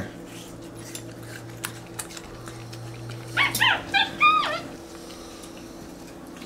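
Capuchin monkeys feeding on watermelon give a quick run of short, high squeaky calls, each rising then falling in pitch, about three and a half seconds in. A steady low hum and a few faint clicks sit underneath.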